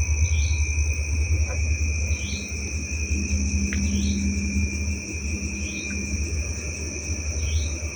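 Steady high-pitched insect trilling, with a short rising chirp repeating about every second and a half, over a low rumble.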